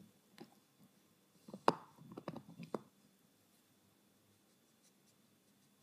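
Beagle puppy gnawing on a stag antler chew: teeth clicking and scraping on the hard antler. There is a faint click first, then a cluster of sharper clicks and scrapes in the middle.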